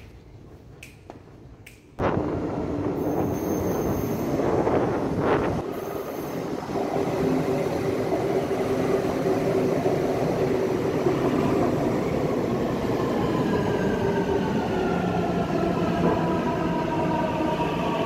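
Istanbul metro train arriving at an underground station: a loud rush and rumble begins suddenly about two seconds in, and in the second half a whine falls steadily in pitch as the train brakes to a stop.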